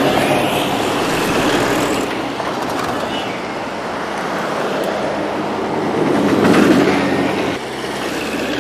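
A line of off-road 4x4s and trophy-raid trucks on big mud tyres driving past one after another on asphalt, engines running and tyres rushing. The sound swells loudest about six and a half seconds in as one vehicle passes close, then eases off.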